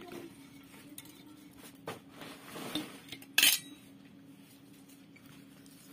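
Steel plate clinking and scraping against a stainless-steel bowl as sliced green chillies are tipped in: a few light clinks, then a louder metallic clatter about three and a half seconds in.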